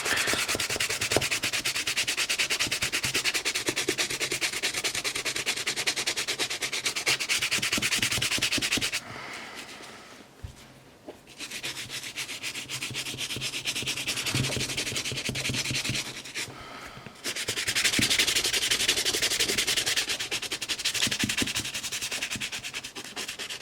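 Rapid back-and-forth scrubbing of a brush on a sneaker's midsole to lift brown dirt staining, pausing twice for a moment.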